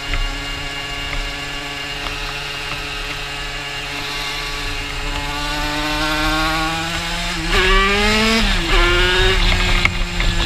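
Aprilia RS's AM6 two-stroke single with an 86 cc aluminium top kit, running under way, with wind noise on the helmet-mounted microphone. The engine note climbs slowly, then flares up and drops back about three-quarters of the way through before settling again.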